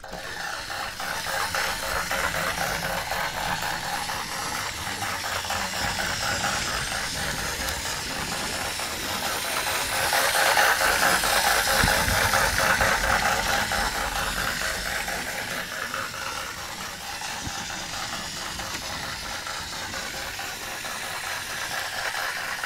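Battery-powered Tomy toy locomotive's small motor and plastic gears running steadily with a fast rattling whir as it circles plastic track. The sound swells about ten seconds in as the train passes close to the microphone, then falls back.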